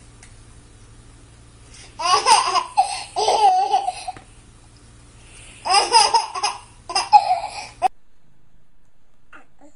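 A baby laughing in two high-pitched bursts, the first about two seconds in and the second about six seconds in, with a faint low hum beneath. The sound cuts off suddenly near eight seconds.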